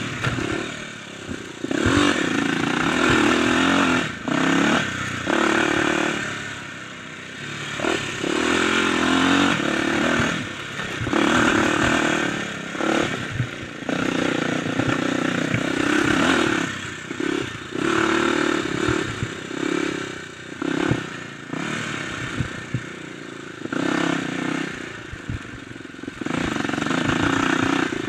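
Kawasaki dirt bike engine being ridden hard on rough singletrack. The throttle is opened and closed over and over, so the engine note swells and drops every few seconds, with knocks and rattles from the bike going over bumps.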